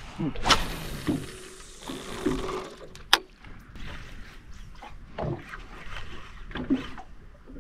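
Water slapping and sloshing against a small boat's hull, with scattered knocks on the boat and a sharp click about three seconds in.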